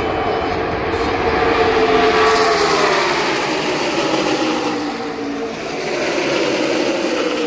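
A pack of NASCAR Cup stock cars with V8 engines passing at racing speed: a loud, dense engine drone that swells about two seconds in, then slides down in pitch as the field goes by.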